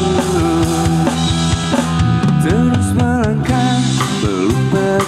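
Live band music: a male singer holding and bending long notes over a drum kit and accompaniment.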